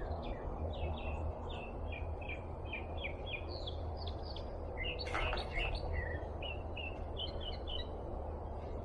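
Birds chirping in many short, quick notes, over a steady low background rumble, with one brief knock about five seconds in.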